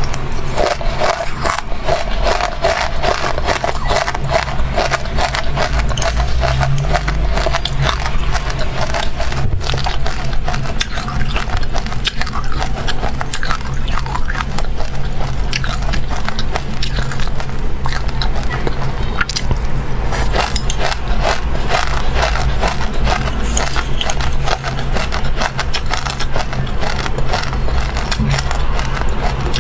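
Close-up crunching and chewing of dry chilli seeds and buckwheat: a dense, uneven stream of small crackling clicks.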